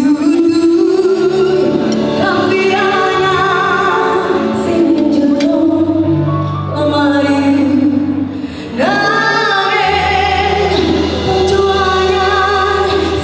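A woman singing into a microphone over a steady instrumental accompaniment, her voice wavering with vibrato. She breaks off briefly about eight and a half seconds in, then comes back in on a rising note.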